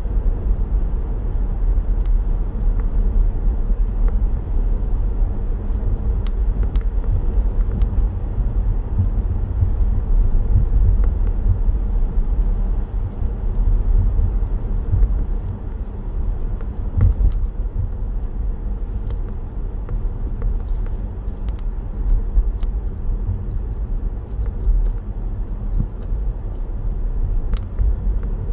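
Steady low rumble of a car driving on a wet road, heard from inside the cabin, with scattered faint light taps of rain on the glass.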